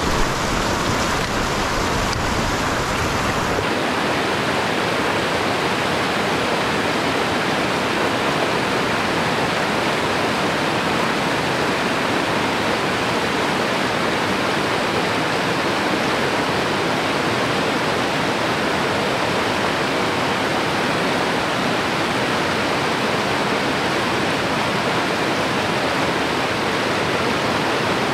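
Fast mountain river rushing over rocks in a steady, loud wash of white water. The deep rumble drops away about four seconds in, and the rushing sound carries on evenly.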